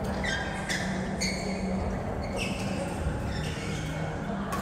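Several short, high squeaks of sports shoes on an indoor court floor, about one a second, over a steady low hum in a large hall.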